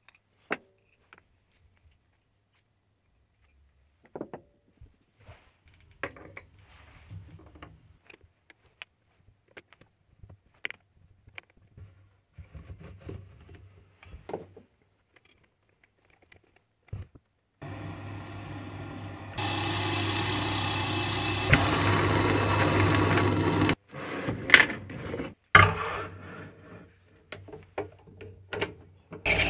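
Small handling clicks and taps, including a screwdriver on a small screw, over near silence. About 18 s in, a drill press starts and runs steadily, then louder as a twist drill cuts into the metal boring head body. It stops near 24 s, there are a few sharp knocks, and it runs again just before the end.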